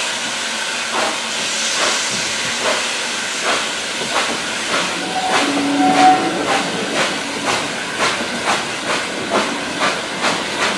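Hunslet Austerity 0-6-0 saddle tank steam locomotive working a train, heard from the coaches behind: a loud steady hiss of steam with exhaust chuffs that quicken as it gathers speed.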